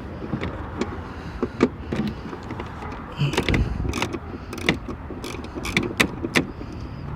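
Socket ratchet wrench clicking in short, irregular strokes as fasteners are worked loose, with sharp metal clicks and a brief clatter about three seconds in.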